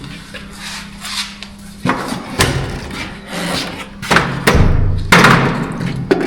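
Several knocks and thumps with some scraping, from drywall being handled and fastened in place.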